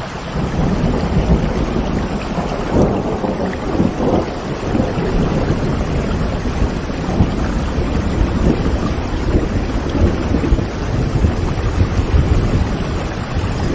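Rain falling steadily, with low rolling thunder rumbling underneath that swells up about half a second in.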